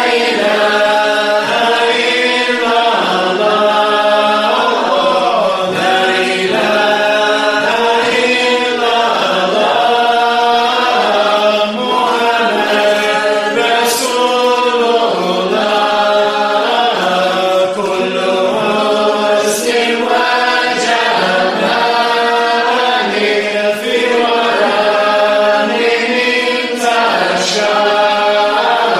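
A group of voices chanting a Sufi qasida in Arabic, a sung dhikr. The melody rises and falls without a break.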